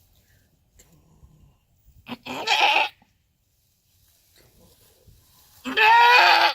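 A goat bleating loudly twice, each call about a second long, the second louder and near the end.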